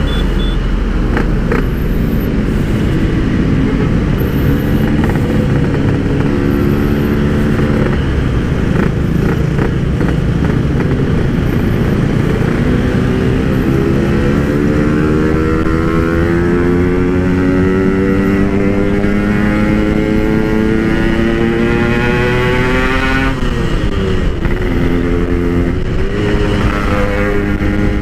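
Yamaha RX-King two-stroke single-cylinder motorcycle engine running through a Pure Sound PK1 aftermarket exhaust while riding, soft and bassy rather than loud. Its pitch rises and falls with the throttle, climbing slowly through one long pull and dropping sharply near the end.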